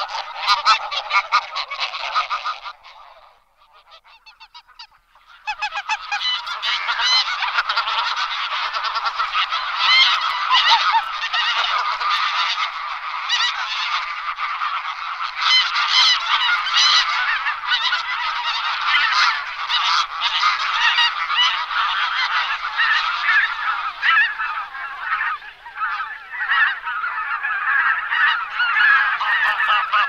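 A flock of greylag geese honking, with many calls overlapping. The calling drops away about three seconds in and picks up again about two seconds later.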